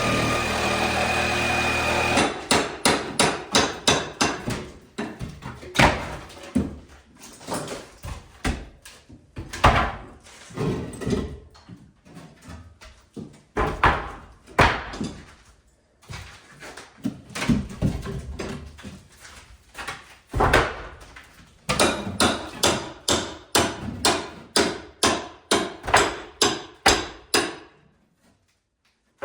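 Plaster being broken out with hand tools: runs of hard strikes, about two or three a second, with short pauses between the runs. A steady mechanical hum cuts off about two seconds in.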